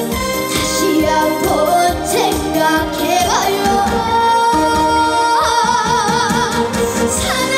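Korean trot song performed live: a female vocalist sings over a band backing track with a steady beat, holding a long note with wide vibrato about two-thirds of the way through.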